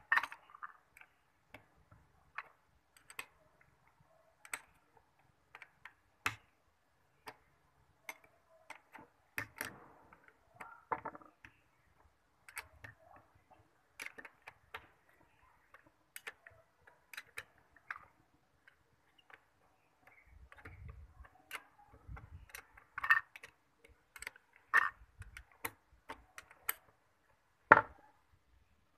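Scattered sharp clicks and light knocks of tools and parts being handled during pressure-pump repair work, coming irregularly about once or twice a second. Several knocks are louder later on, and the loudest comes near the end.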